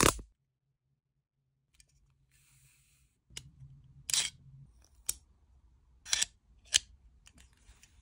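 The tail of a stun gun's electric crackle cuts off just after the start. After a pause, a metal belt buckle with a concealed knife is handled: about four sharp metallic clicks with light scraping as the knife piece is worked out of the buckle.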